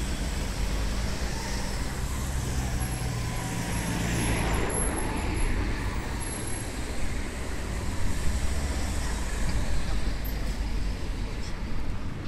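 Steady engine hum and road noise of a car driving slowly along a town street, heard from within the moving car.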